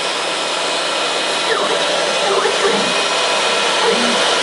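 CNC router milling Styrodur (XPS foam) with a 6 mm radius cutter: the spindle runs with a steady whine over a constant rush of noise. A few short tones glide up and down in pitch along the way.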